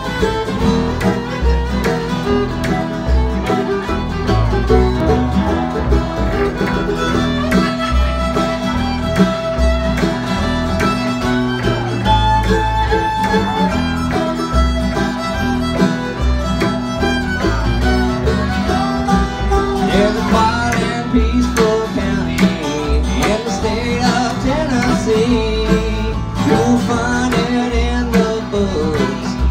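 Live acoustic bluegrass band playing an instrumental passage: bowed fiddle, mandolin and acoustic guitar over an upright bass keeping a steady beat.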